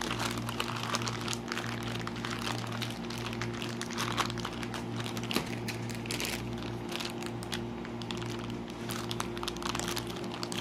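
Plastic wrapping crinkling and rustling as a cricket ball is unwrapped and bagged items in a cardboard box are handled, in short irregular crackles, over a steady low hum.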